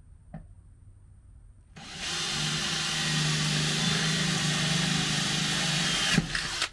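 Cordless drill running at a steady speed, its bit boring up into a hollow aluminium crossmember under the truck to make a hole for a rivet nut. It starts about two seconds in and stops sharply just before the end.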